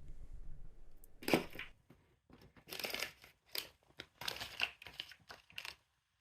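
Hands working on car wiring: a handful of short crinkling, tearing rustles, then silence near the end.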